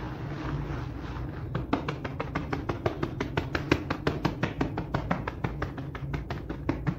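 Hand-held scrub brushes working a soap-foamed rug, wet bristles scraping and slapping the pile. A softer swishing at first, then about a second and a half in, fast, even strokes, about six a second.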